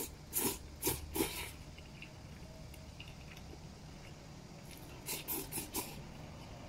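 A man slurping wide oil-splashed wheat noodles in short, quick sucks: a run of about four near the start and another run of about four about five seconds in.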